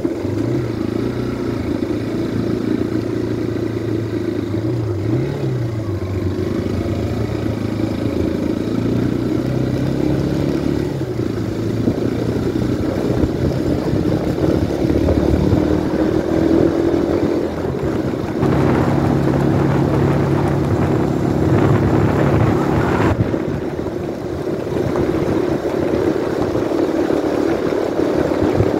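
Motorcycle engine running under way, a steady note that shifts in pitch a few times with the throttle. A louder rushing noise joins it between about 18 and 23 seconds in.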